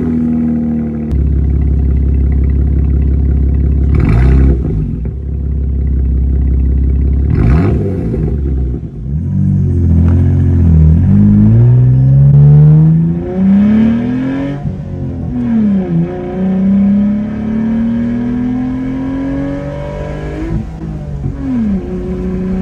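Jeep Gladiator's 3.6L Pentastar V6 running through a freshly installed Flowmaster Outlaw Extreme cat-back exhaust, which is loud. It idles with two short revs, then accelerates through several gears, the note rising and dropping back at each shift.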